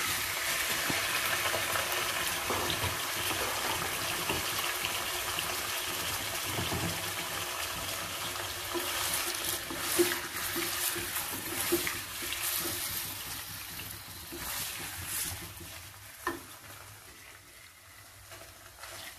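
Raw chicken pieces sizzling in hot oil in a nonstick kadai, the hiss slowly dying down. A wooden spatula scrapes and knocks against the pan several times as the pieces are turned in the second half.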